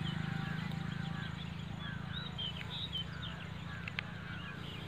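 Small birds chirping over and over in short calls, above a low steady hum. A single sharp click comes about four seconds in.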